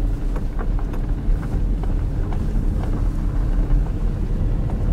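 A vehicle driving, its engine giving a steady low rumble with a faint hum, and small ticks scattered over it.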